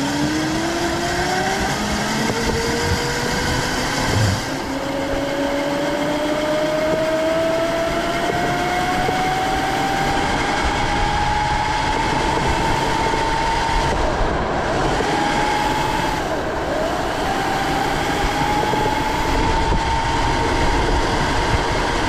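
Whine of a converted Razor MX400 mini bike's 48-volt, 2 kW electric motor under way. Its pitch climbs slowly as the bike gathers speed and dips briefly about sixteen seconds in, over a steady rush of wind and road noise.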